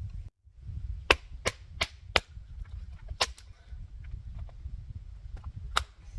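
A run of sharp knocks on wood, about seven in all: four in quick succession, then two close together, then one more near the end. A steady low rumble runs beneath them.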